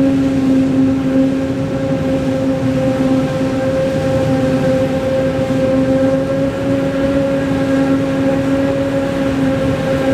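Farm machinery working a maize harvest, its engine running at a steady working speed with a constant droning hum.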